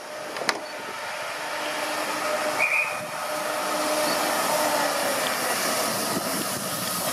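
Two Class 68 diesel-electric locomotives with Caterpillar V16 engines run light engine toward the listener, a steady hissing rush of engine and running noise that grows louder over the first few seconds and then holds.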